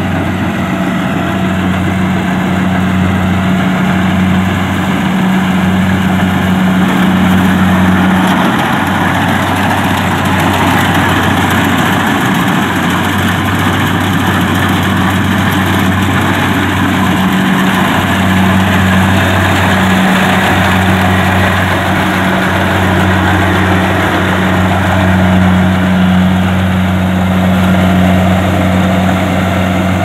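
Kubota DC-70 rice combine harvester's diesel engine running steadily under load as it cuts and threshes rice, a loud even hum with the dense whir of the machinery.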